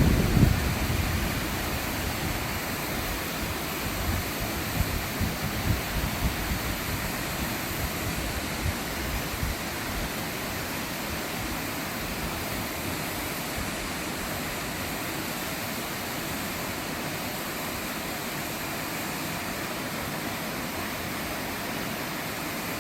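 Waterfall rushing in a steady, even roar of falling water. Uneven low buffeting on the microphone for the first several seconds dies away by about ten seconds in.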